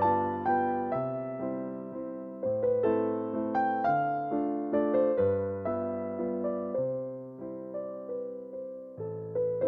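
Background music: a gentle piano melody over slow bass notes.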